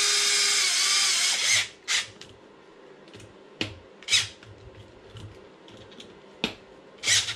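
Small cordless impact driver running for about a second and a half as it drives a motor mount screw into the RC car's chassis, then several short trigger bursts as the screws are snugged down.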